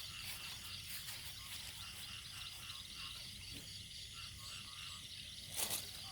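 A chorus of many frogs and small rice-field frogs calling over one another, a dense, continuous pulsing in a flooded field after a night of rain. A short knock near the end is the loudest sound.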